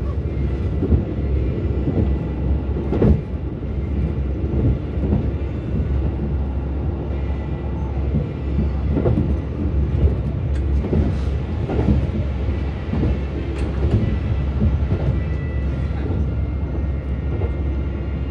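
KiHa 185 diesel railcar of the A-Train running along the line: a steady low rumble with irregular clacks and knocks from the wheels on the track.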